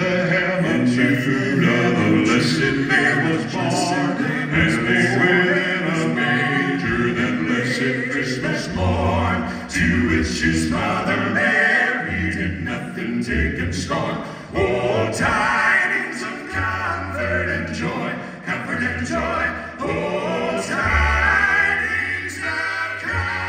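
Male gospel quartet singing in close harmony through a theater's sound system, low bass notes held beneath the upper voices.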